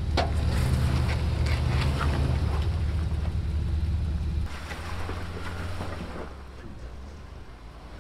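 Off-road vehicle engine running with a steady low drone, dropping off sharply about halfway through and fading lower toward the end.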